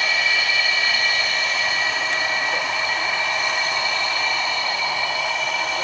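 Aircraft turbine engines running at idle on the ground: a steady high whine of several pitches over a rushing hiss.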